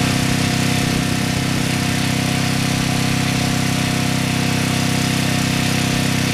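Briggs & Stratton portable generator running steadily with its stock factory muffler, loud, with a strong low exhaust note under the engine clatter.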